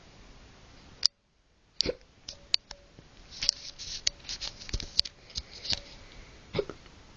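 A drunk person hiccuping: short, sharp hiccups, the fullest about two seconds in and near the end, with a run of small clicks between them.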